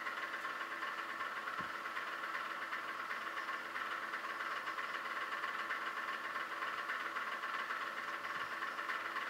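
Steady machine hum with no change in pitch or level, and one faint knock about a second and a half in.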